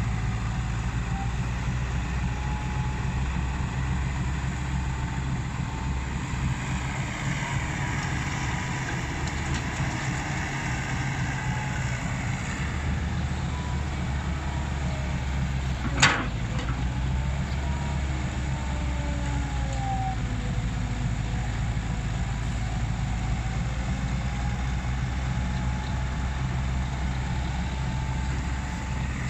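Komatsu excavator's diesel engine running steadily, with a faint whine that slides up and down in pitch. A single sharp clank about halfway through.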